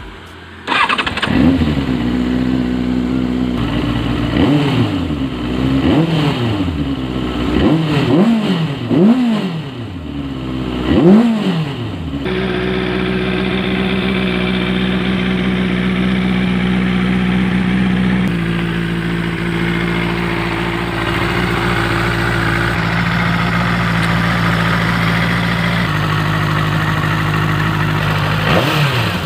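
Benelli 600i inline four-cylinder motorcycle engine starts about a second in and is blipped through a series of quick revs that rise and fall. It then settles into a steady idle, with one more rev near the end.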